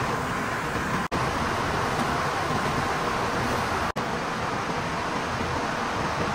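Textile mill machinery running with a steady, dense whir, dropping out for an instant twice.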